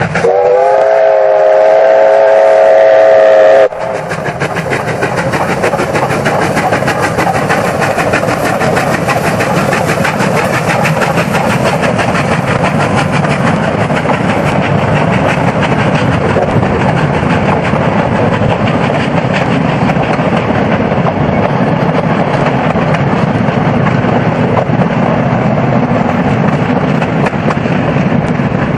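Steam locomotive J515's whistle blown as one long chord of several tones for about three and a half seconds, cut off sharply, then the loud, steady sound of the locomotive and train running, with rapid even beats throughout.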